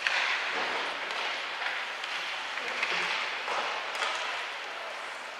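Crowd noise of basketball spectators in a gym: many voices blended together, swelling and easing off.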